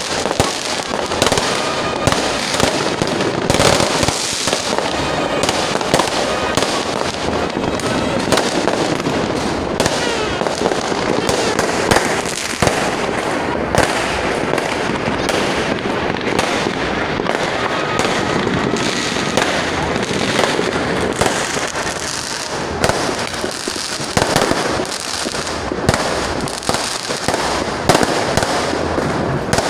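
Aerial fireworks going off in a steady barrage of bangs and crackles, with people's voices mixed in.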